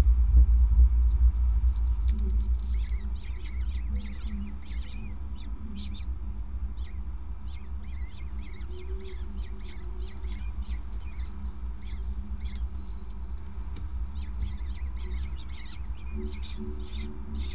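Peregrine falcon chicks giving a fast, continuous run of short, high begging cheeps while an adult feeds them, over a steady low rumble.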